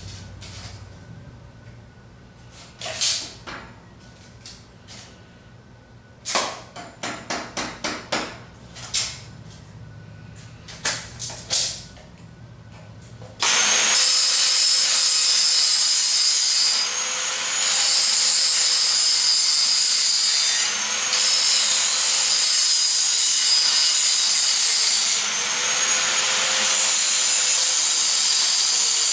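A few sharp metal clicks and clanks as tools and clamps are handled on the steel frame. About thirteen seconds in, a reciprocating saw starts up and runs steadily, cutting into the Model T's steel frame rail, with a few brief drops in speed.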